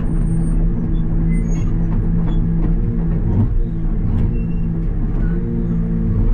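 Takeuchi TB285 excavator running with its Blue Diamond severe duty hydraulic rotary cutter spinning in brush. A steady, loud drone with scattered ticks, wavering briefly about three to four seconds in.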